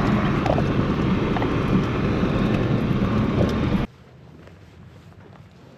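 A vehicle engine running steadily, with wind buffeting the microphone. It cuts off suddenly about four seconds in, leaving a much quieter background.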